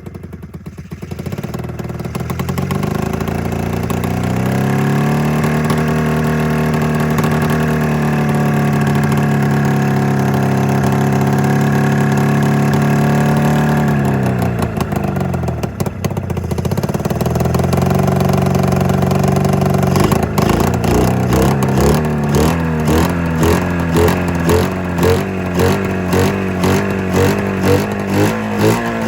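Snowmobile's twin-cylinder two-stroke engine running and revving: it climbs in pitch, holds steady, drops back about halfway through, climbs again, then surges up and down unevenly near the end. It is firing on only one cylinder.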